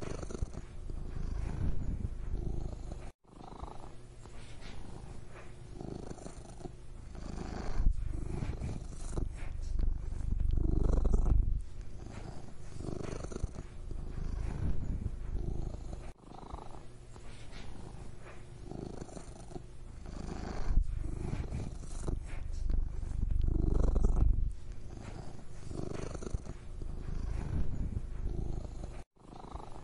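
Domestic cat purring close up: a steady low rumble that swells and eases in a slow cycle every few seconds. It breaks off for an instant three times.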